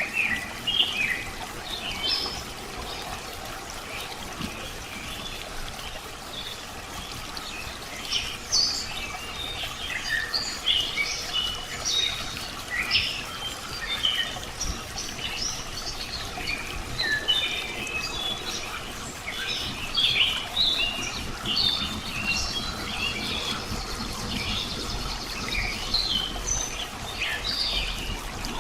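Many small birds chirping and calling in quick, overlapping short notes over a steady trickle of water, the chirping growing busier after the first few seconds.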